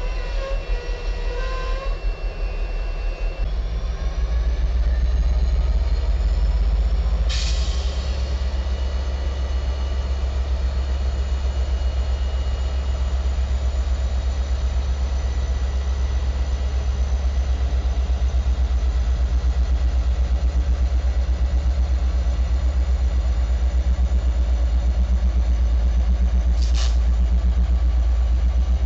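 Diesel freight locomotives running as they move slowly past: a deep, steady engine drone with a pulsing throb that grows louder a few seconds in. Faint squeals in the first couple of seconds, and two short sharp sounds, one about a quarter of the way in and one near the end.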